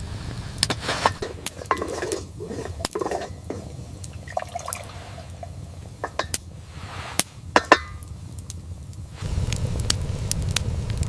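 Scattered clinks and knocks, like dishes and pots being handled, with some liquid sounds. About nine seconds in a steady low rumble with small crackles takes over.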